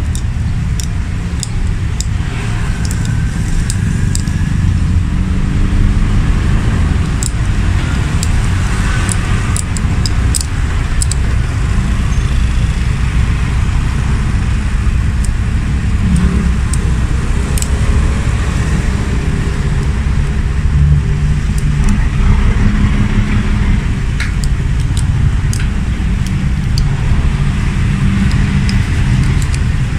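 Light metal clicks and scraping from a disassembled car alternator's part being scraped clean by hand. These come scattered, thickest in the first dozen seconds. Under them runs a loud, steady low rumble.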